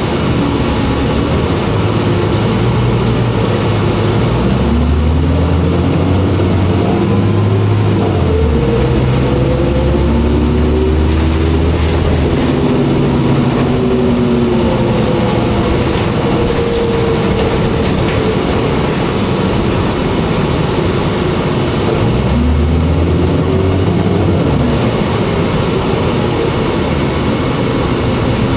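A New Flyer D40LF transit bus's Cummins ISL six-cylinder diesel and Voith automatic transmission under way, heard inside the cabin. A low engine drone comes and goes, and a whine glides up and down in pitch several times as the bus speeds up and slows, over steady road noise.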